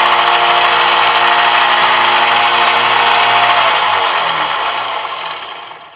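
Electric power tool running steadily with a motor whine and hiss, then switched off about three and a half seconds in and winding down to a stop.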